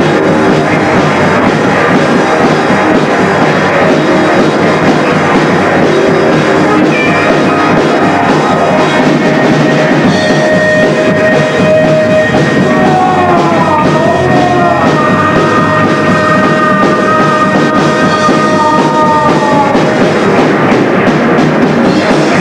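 Amateur thrash rock band playing live: distorted electric guitars over a drum kit, loud and dense throughout. From about ten seconds in, long held and bending high notes rise over the band for about ten seconds.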